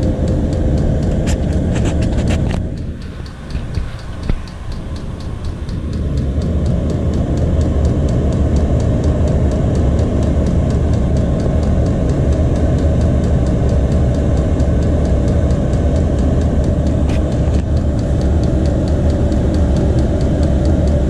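Chinese all-in-one diesel air heater running, a steady fan and burner hum with a fast, regular ticking from its fuel pump. About three seconds in the sound briefly drops and turns muffled, then comes back to full level.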